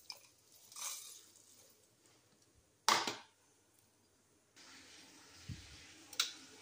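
Dry-roasted whole spices, coriander seeds and dried red chillies, poured from a plate into a steel mixer-grinder jar, rattling against the metal in a short rustle about a second in and a brief loud clatter about three seconds in. Near the end, a couple of sharp clicks as the steel jar and lid are fitted onto the mixer base.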